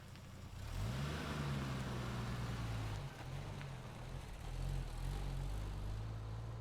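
SUV engine picking up revs under light throttle a little under a second in, its pitch rising and wavering as the vehicle moves, then easing back to a steady idle near the end.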